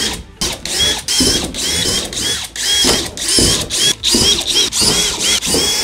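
Cordless drill with a 1/4-inch bit boring holes through a composite van partition, the motor whining in short repeated runs, about two a second, its pitch bending up and down as the bit bites and breaks through.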